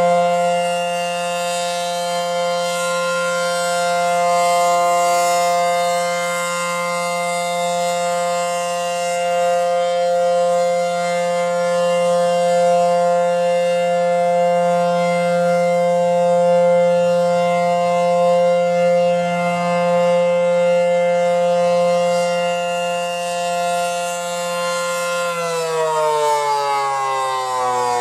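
ACA Howler rotating civil defense siren sounding a steady tone, swelling and fading slightly as its horn turns. About 25 seconds in, the pitch begins to fall as the siren winds down.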